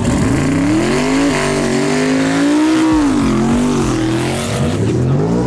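Drag race car's engine revving hard, its pitch climbing, dipping and climbing again several times as the car pulls away from the line.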